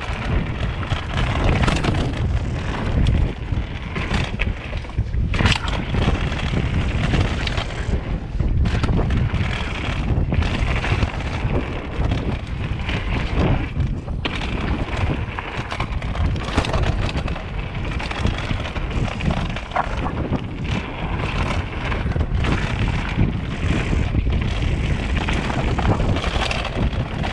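Wind buffeting the camera microphone over the rumble of a mountain bike riding fast down a dirt trail, with frequent sharp knocks and rattles as the bike goes over bumps.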